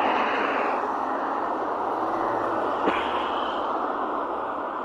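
Traffic passing on a wet road: tyre hiss and spray that swells at the start and slowly fades, with a short click about three seconds in.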